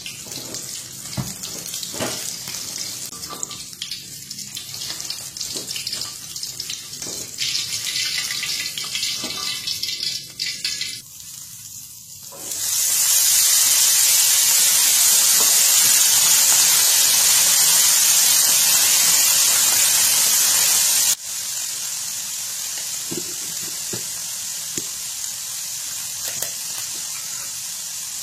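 Water running from a tap into a sink, uneven at first with scattered knocks and clatter. It then turns to a loud steady gush, which drops suddenly, about three-quarters of the way through, to a quieter steady hiss.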